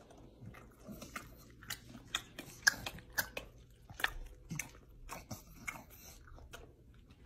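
English bulldog chewing dry Lucky Charms cereal: a run of small, irregular crunches and clicks, loudest a little before the middle.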